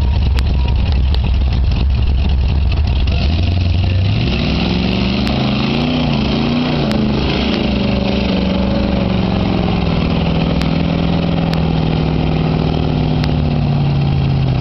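Ford 460 big-block V8 in a lifted 1986 Ford Ranger mud truck: a low steady rumble, then about four seconds in it revs up and holds high, wavering revs as the truck drives through the mud pit, easing off right at the end.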